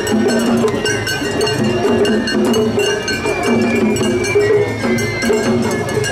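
Japanese festival hayashi music played on a float: a bamboo flute carries a held melody over drums and the rapid clanging of a small hand-struck gong (kane), with crowd voices mixed in.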